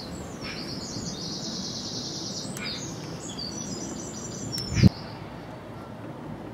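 A small songbird singing rapid runs of repeated high chirps and trills, with one sharp snap about five seconds in as the wire cutters strip the insulation off a cable end.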